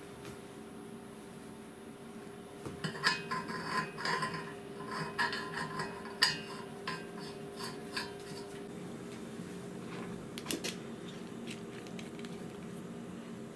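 Metal parts of a homemade injection molding machine clinking and scraping as they are handled and fitted, with a cluster of sharp ringing clinks from about three to seven seconds in and a couple more later. A steady low hum runs underneath.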